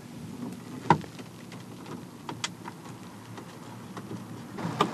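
Hard plastic clicks and knocks as a new digital gauge cluster, wrapped in protective film, is handled and pushed into a pickup truck's dash opening. There is one sharp knock about a second in, scattered light ticks, and a quick run of clicks near the end.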